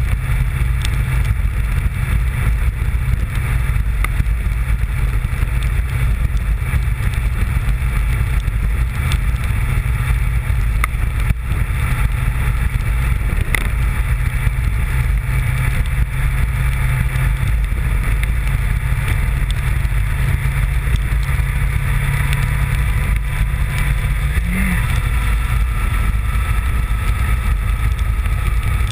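Honda VFR750's V4 engine running steadily as the motorcycle climbs at cruising speed, with a steady rush of wind over the microphone. The engine pitch rises and falls briefly about 25 seconds in.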